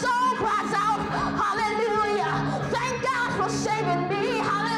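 Gospel music: a voice singing, its pitch bending and sliding, over steady held notes of an accompaniment.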